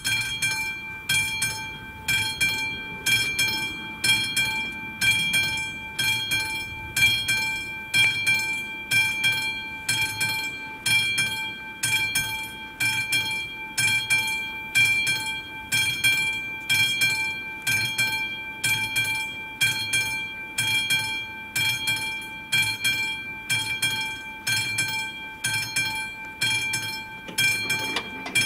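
Classic electromechanical level-crossing warning bell of an AŽD 71 crossing, starting suddenly and ringing on with rapid, evenly spaced strokes and a bright metallic ring of several tones. It signals that the crossing is closing for an approaching train.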